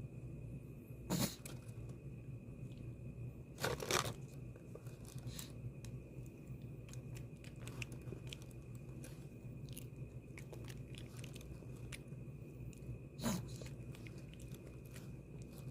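A corgi eating, its food crunching in irregular small clicks as it chews, with three louder short bursts: one about a second in, one around four seconds in, and one near the end.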